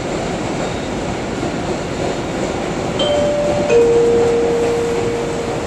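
Boston MBTA Blue Line subway train running, heard from inside the car: a steady rumble of wheels on the track. About three seconds in, a steady whining tone joins and holds as the train nears the station.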